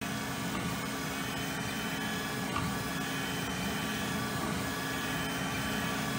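Voron 2.4 CoreXY 3D printer running a print: a steady mechanical hum with several fixed whining tones from its motors and cooling fans as the toolhead moves.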